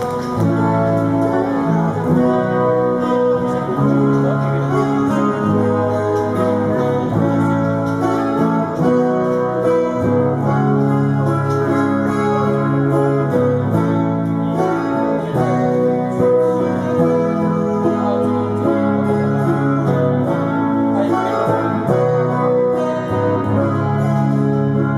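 Two amplified silent guitars played together as a live duet: a picked melody over plucked chords in a steady rhythm.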